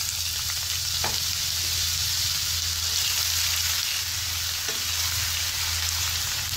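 Finely chopped onion sizzling steadily in hot cooking oil in a non-stick kadai as it is stirred with a silicone spatula.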